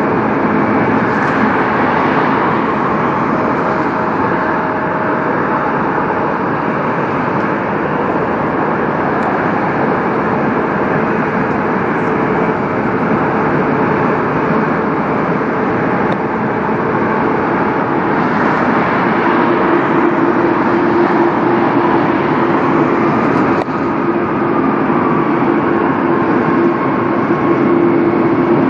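Boeing 787-9 Dreamliner's jet engines running at taxi power: a steady jet rumble and hiss, with a steady droning tone joining in about two-thirds of the way through.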